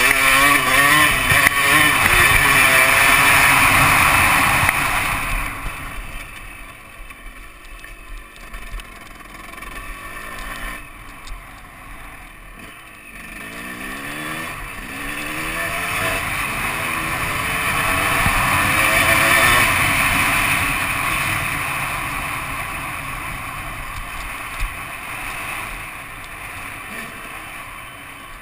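KTM 250 SX two-stroke motocross bike engine under way, revving hard for the first few seconds, then dropping off the throttle about five seconds in. It builds revs again from about a third of the way through, peaks past the middle, and eases off toward the end.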